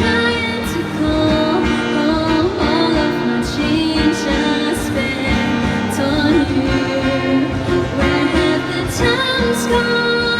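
Live pop music: a female singer with instrumental accompaniment, playing continuously.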